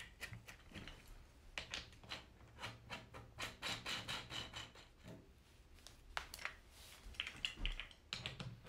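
Faint, irregular clicks, knocks and rubbing as caster wheels are handled and twisted into the sockets of a plastic cage frame.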